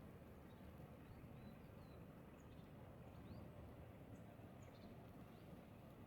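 Near silence with a low, steady background hum and faint, short, high bird chirps scattered throughout, a few a second at most.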